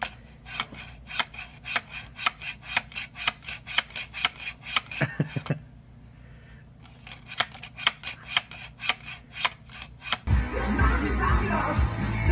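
Rapid sharp clicks, about four or five a second, in two runs with a short pause between them; music comes in near the end.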